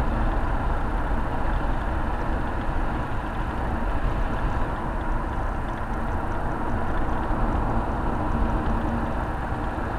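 Steady road and engine noise of a car driving at cruising speed, heard from inside the cabin.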